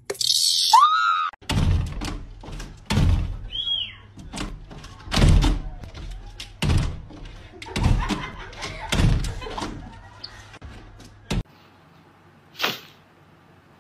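Glass patio door being shoved and banged against its frame as an animal pushes at it and a person holds it, a run of heavy thumps and bangs about one a second. A brief high hiss comes just before, and the bangs stop suddenly a couple of seconds before the end.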